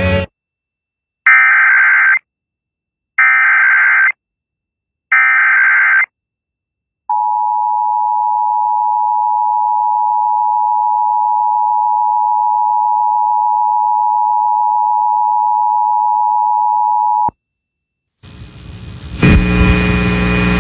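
Emergency Alert System (EAS) signal: three one-second bursts of buzzy digital SAME header data, then a steady EAS attention tone held for about ten seconds that cuts off abruptly. This sequence announces an incoming emergency alert.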